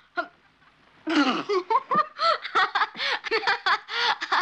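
A girl laughing hard: a long run of quick, high-pitched bursts of laughter starting about a second in.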